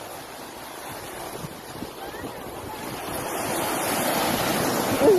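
Ocean surf at the shoreline: a wave swells and breaks, its rush growing louder toward the end, with wind buffeting the microphone. A person's voice cries out at the very end.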